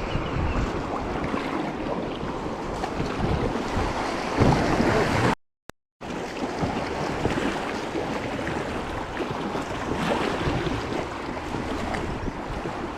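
Wind rushing over the microphone with water noise as a boat moves along a river. The sound drops out to silence for about half a second midway through, then picks up again.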